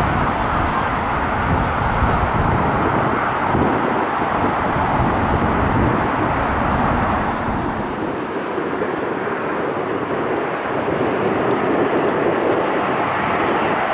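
Jet airliner engines on low final approach to land, a steady rush that swells again near the end, mixed with wind buffeting the microphone as a ragged low rumble that eases about eight seconds in.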